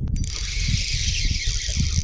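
Spinning reel whirring steadily as a hooked largemouth bass is reeled in, with gusting wind rumbling on the microphone.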